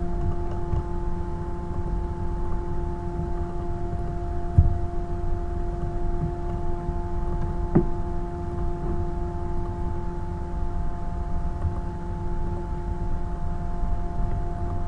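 Steady background hum made of a few constant tones over a low rumble, with two short clicks about four and a half and eight seconds in.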